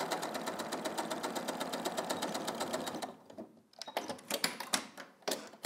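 Domestic sewing machine stitching at an even pace, about ten stitches a second, while topstitching a seam. It stops about three seconds in, followed by a few irregular clicks and rustles of handling.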